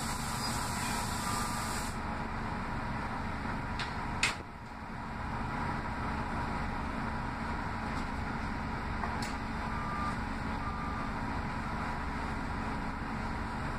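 Inside a running Orion VII CNG bus: steady engine and road noise with a low hum. A hiss stops about two seconds in, and a single sharp knock comes about four seconds in, after which the noise dips briefly and builds back up.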